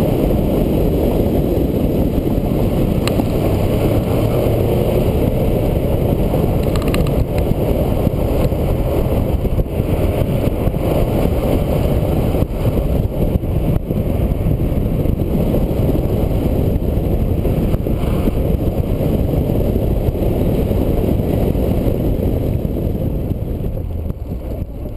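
1992 Mazda Miata's 1.6-litre four-cylinder engine running hard through an autocross course, with a loud, mostly low rush of engine and wind noise on a camera mounted outside the car. It fades out near the end.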